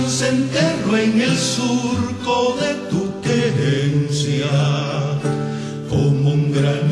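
Background music: a song with a singing voice over sustained instrumental chords.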